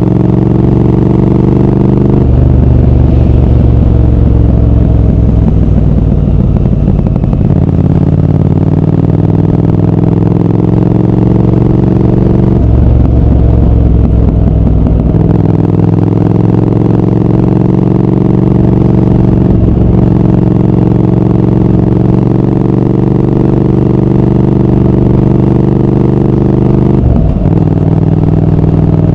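Triumph Speed Twin 1200's parallel-twin engine and exhaust running on the move. The engine note drops and climbs again several times with the throttle, around two, seven, twelve, fifteen and twenty-seven seconds in, and holds steady between.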